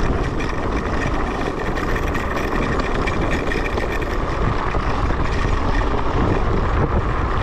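Electric scooter riding over a rough, muddy track: a steady rumble of tyres and rattling, with wind on the microphone and a faint steady high whine over it.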